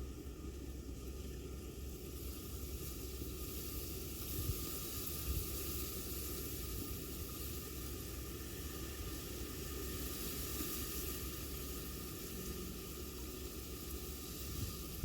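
Steady, even hiss of outdoor background noise with a low rumble underneath and a couple of soft bumps about four to five seconds in.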